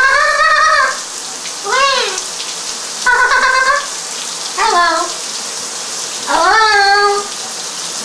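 Green-winged macaw calling over running shower water: about five short, loud calls, each rising and falling in pitch, roughly one every second and a half, with the shower spray hissing steadily underneath.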